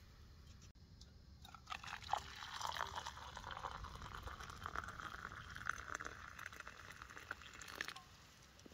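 Hot water being poured into a cup to make tea, a continuous pour of about six seconds that starts a second and a half in and stops just before the end.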